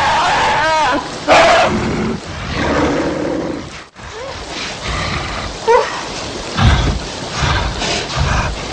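Animal calls, loudest just over a second in, broken by an abrupt cut about four seconds in and followed by shorter calls.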